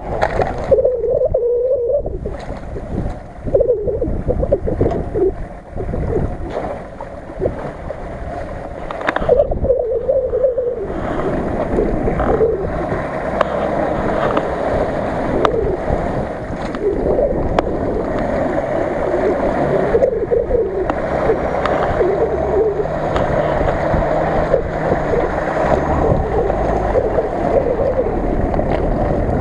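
Nissan Patrol 4x4's engine revving and labouring, rising and falling, as it climbs a bank and wades through a shallow river, with water splashing around the wheels.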